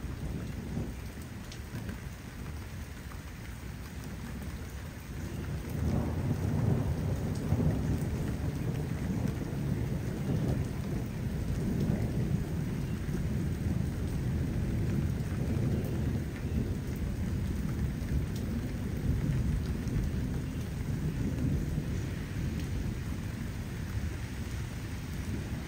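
Steady rain falling, with a deep rolling rumble of thunder that swells about six seconds in and carries on under the rain.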